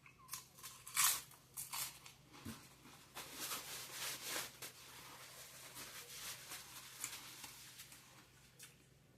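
Close-up eating and food-handling noises: crisp crunches and crinkles, the loudest about a second in, then a longer run of rustling and crunching between about three and four and a half seconds in.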